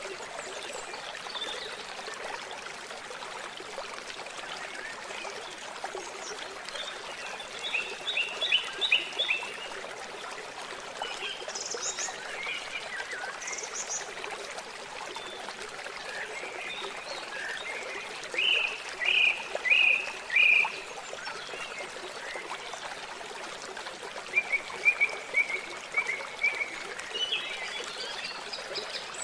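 Steady rush of running water, with birds calling over it in a few short bursts of rapid repeated notes.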